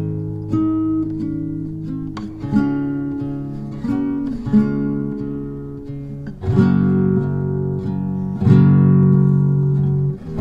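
Background music: acoustic guitar strumming and plucking a slow chord progression.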